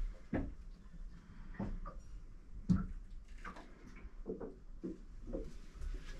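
Faint, irregular soft knocks and thumps, about seven spread over the few seconds, over a low hiss in a small enclosed room.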